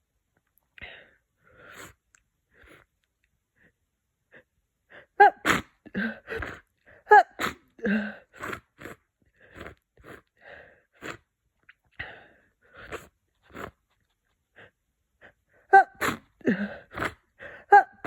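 A person with a head cold sniffing through a blocked nose and sneezing congested sneezes. There are soft sniffs at first, a cluster of loud sneezes about five seconds in, and more loud sneezes near the end.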